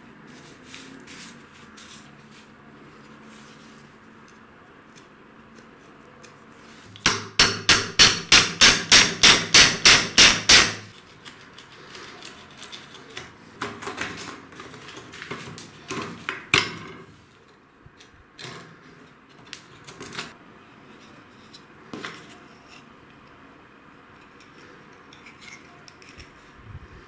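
Hammer blows in the workshop: a quick run of about fourteen sharp strikes, about four a second, followed by scattered lighter knocks and clicks.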